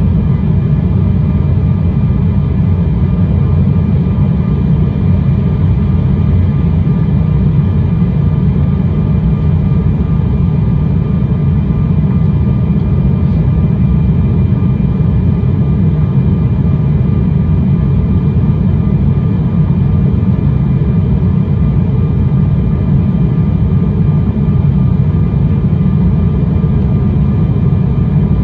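Steady cabin noise inside an Embraer 195 airliner descending toward landing: an even, loud rumble of airflow and the General Electric CF34 turbofan engines, with faint steady whining tones above it.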